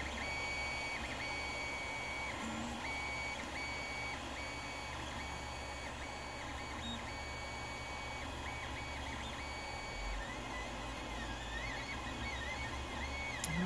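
Creality Ender 3 3D printer running a print: its stepper motors whine in short tones that jump between pitches as the print head changes moves, over a steady low hum. Near the end the whine wavers up and down as the head traces curves.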